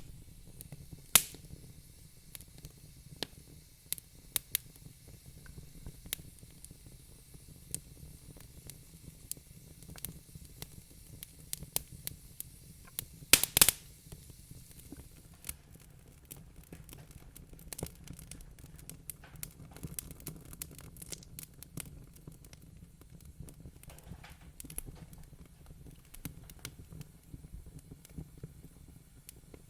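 Wood fire crackling in a fireplace: irregular sharp pops and snaps over a low steady rumble, with a loud cluster of pops about thirteen seconds in.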